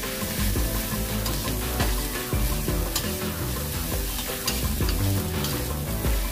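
A metal spatula scrapes and tosses fried rice around a steel wok, with irregular scrapes and clacks against the pan over a steady frying sizzle.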